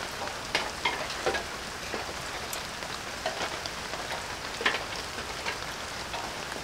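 Steady rain falling, an even hiss with a scatter of short clicks and taps through it.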